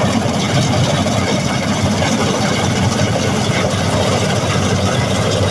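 Combine harvester engine running steadily, a loud, even machine drone that does not change.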